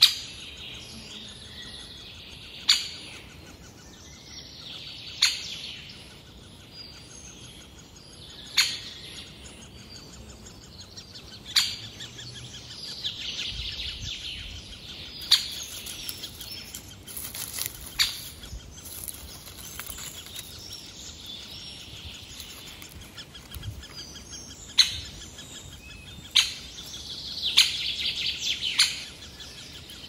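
Songbirds calling in the open, with one bird close by giving a sharp, loud chip note every two to three seconds, faster near the end, over a fainter background chorus of birdsong.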